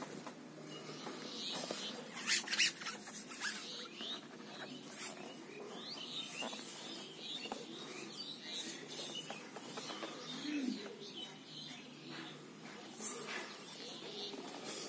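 Handling noise of a laptop being turned over in the hands: scattered rustles and light taps and knocks on its casing, the loudest cluster a little over two seconds in. Faint short chirps sound behind it.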